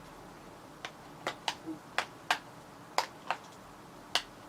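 About eight short, sharp clicks and taps, irregularly spaced, from smartphones being handled: side buttons pressed and fingernails or the phones' metal and glass bodies clicking against each other.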